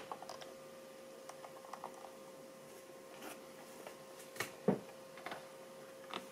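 Small plastic clicks and taps as plastic action figures are handled and pressed onto a plastic display base, with one louder knock about two-thirds of the way through. A faint steady hum runs underneath.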